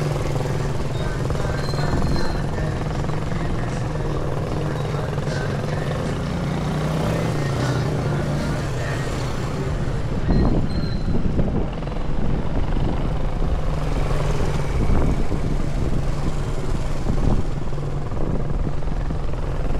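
Small step-through motorcycles running as a group rides slow laps past, a steady low engine hum that grows louder and choppier about halfway through.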